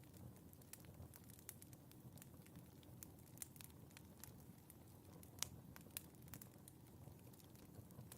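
Wood fire in a fireplace crackling faintly, with irregular small pops and snaps over a low rumble of the flames, and one louder pop about five seconds in.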